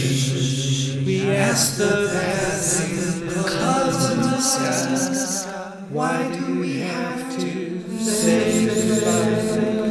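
Music with sung, chant-like vocals over a steady beat with cymbals; it thins out briefly about six seconds in, then comes back.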